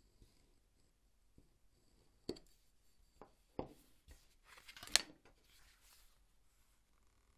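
Faint workbench handling sounds: two light knocks a little over a second apart as a leather awl and craft knife are set down on a cutting mat, then a brief rustle with a sharp click as the paper pattern and leather piece are picked up.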